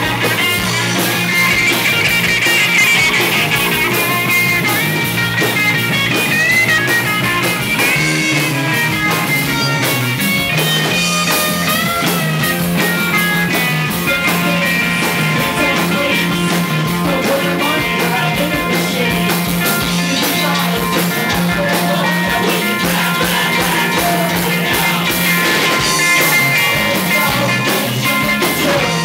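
Live rock band playing loudly: electric and acoustic guitars over bass and drums, with a woman singing.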